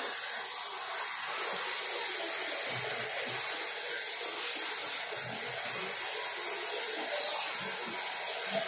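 Steady, even hiss of rushing air or noise, with a few faint soft thuds about three and five seconds in.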